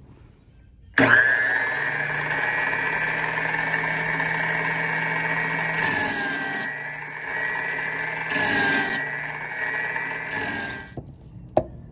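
Powered knife-sharpening machine grinding the edge of a steel knife blade: a steady motor hum under a ringing, rasping grind. The grind turns harsher three times, for about half a second each, about five, eight and ten seconds in. It starts abruptly about a second in and stops shortly before a click near the end.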